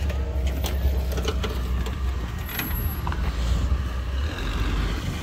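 Off-road 4x4's engine running low and steady, with a few short sharp clicks or knocks in the first three seconds.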